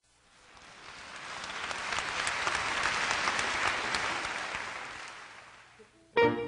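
Audience applause that swells up and then dies away. Near the end, plucked guitar notes start sharply.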